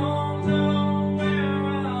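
Acoustic guitar music: chords strummed, each ringing on until the next change about every second.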